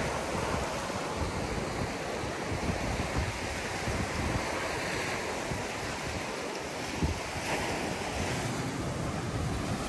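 Small sea waves washing up a sandy beach and around rocks, a steady surf wash with wind buffeting the microphone.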